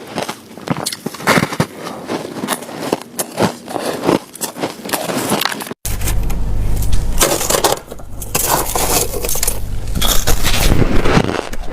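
White snow ice being bitten and chewed close to the microphone: a dense run of sharp crunches and cracks. A split-second dropout comes about six seconds in, and after it a low rumble runs under the crunching.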